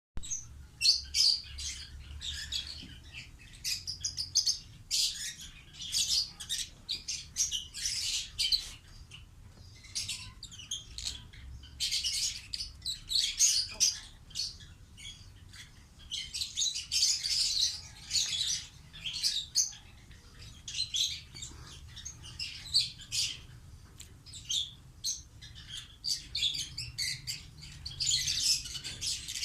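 Pet parrots chirping and chattering, with bursts of quick high chirps every second or two and short pauses between them.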